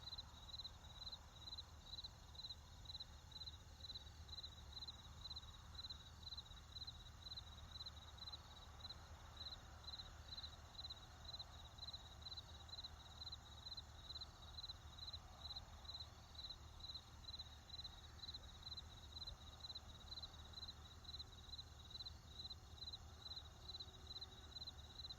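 Crickets chirping steadily at about two chirps a second, with a faint low rumble of distant traffic underneath.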